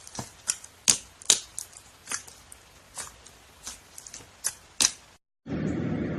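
Slime being pressed and worked, its trapped air pockets popping in sharp, irregular clicks of varying loudness. The clicks stop about five seconds in, and after a brief gap a different steady noise, strongest at the low end, starts near the end.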